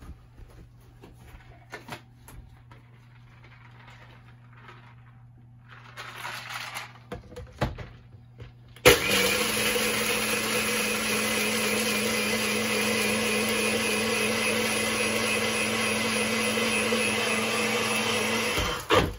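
Personal bullet-style blender crushing ice with lemonade and vodka into a thick slush: the motor starts suddenly about nine seconds in, runs steadily for about ten seconds and cuts off near the end. Before it, light clatter and a few knocks.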